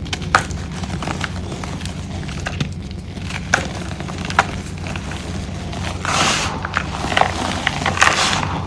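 Dyed gym chalk blocks being crushed: a few separate sharp cracks, then denser crunching and crumbling from about six seconds in, over a steady low hum.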